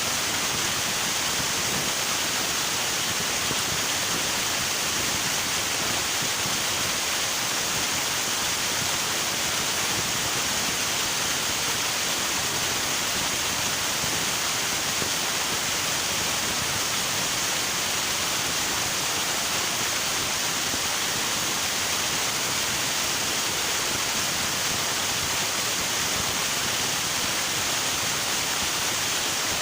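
River water flowing, a steady unbroken rush with no changes.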